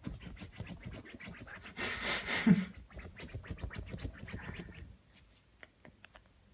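Teacup Yorkshire terrier puppy digging at a fabric pillow with her front paws: rapid scratching strokes on the cloth, loudest in a brief burst about halfway through, thinning to a few soft ticks near the end.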